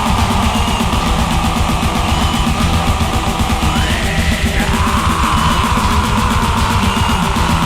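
Orchestral-symphonic black metal: distorted guitars and drums under a held high melody line that steps up in pitch about four seconds in, then drops back a second later.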